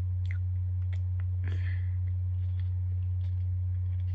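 Faint chewing and small mouth clicks from someone eating a Wagon Wheel cookie, over a steady low hum.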